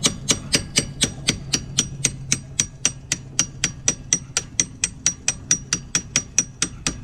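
Hammer repeatedly striking steel strut-mounting bolts, about four blows a second, each with a metallic ring. The bolts are jammed tight in the strut bracket and are being hammered until they break loose.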